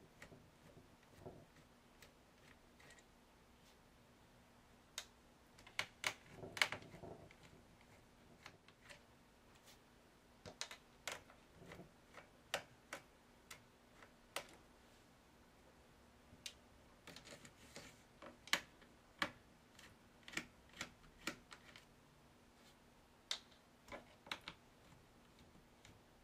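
Hands working on the plastic casing of an Acer Aspire 5920 laptop: scattered, irregular sharp clicks and taps, some in quick clusters, over a faint steady hum.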